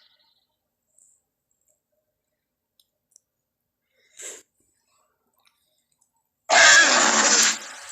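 Pachycephalosaurus creature sound effect from the Jurassic Park films: a short faint grunt about four seconds in, then a loud, rough, breathy call lasting about a second near the end, between stretches of silence.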